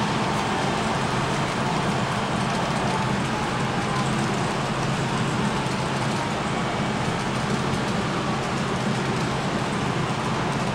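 Model train running: a long string of tank cars rolling steadily over the track and bridge, an even rumble with a hiss over it.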